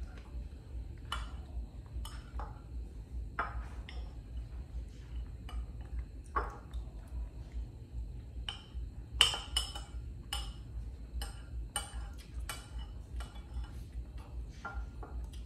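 Irregular clinks and taps of a spoon against a bowl as rice and egg are scooped up, a cluster of sharper clinks about nine seconds in, over a low steady hum.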